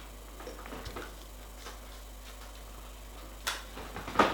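Scattered light ticks and taps from handling a new laptop LCD panel while its protective film is taken off, with a sharper click about three and a half seconds in and a louder crackly cluster near the end.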